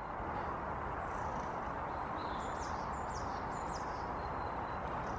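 Steady outdoor background noise, with small birds chirping faintly a few times around the middle.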